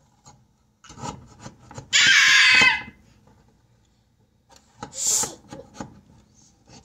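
Table knife scraping around baked muffins in a metal muffin tin to loosen them from the cups: a run of short scrapes, a loud high screech lasting under a second about two seconds in, and another sharp scrape near five seconds.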